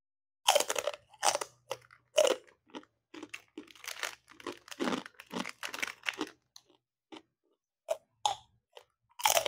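Kerupuk kulit (puffed cow-skin crackers) being eaten close to the mouth: three loud crisp bites, then a run of quicker crunchy chewing, then more crisp bites near the end.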